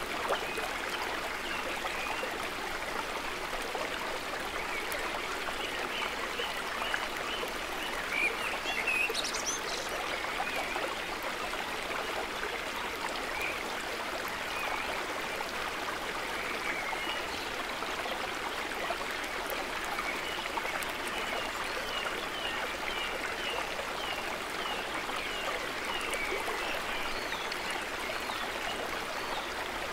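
Woodland stream running over rocks: a steady, unbroken rush of water, with a few faint high chirps now and then.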